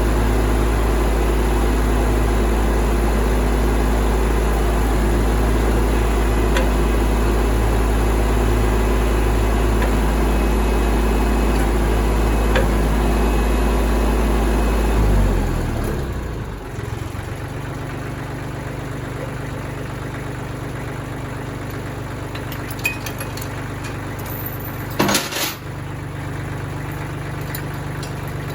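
Tractor engine running steadily at speed, then throttled down about halfway through, its pitch stepping down to a lower, quieter idle. A few sharp metallic clinks come near the end.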